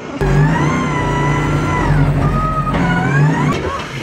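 Drift car engine revving hard through a slide. The note holds high, dips about two seconds in, then rises again before cutting off shortly before the end.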